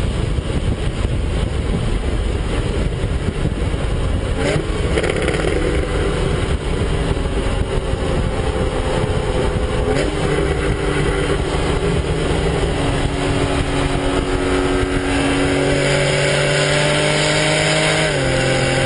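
Porsche Carrera's flat-six engine heard from inside the cabin over heavy wind and road roar at around 300 km/h, easing off as the car slows. The engine note steps down in pitch about halfway through and again near the end, around a downshift to fourth.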